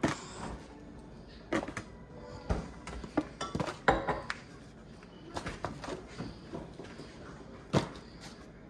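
Potato chunks being placed and pushed into a disposable aluminium foil roasting pan: irregular taps, knocks and small clinks, a few with a brief ring.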